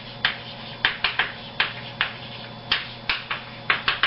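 Chalk tapping and scratching on a blackboard as words are written: about a dozen short, sharp strokes at an uneven pace.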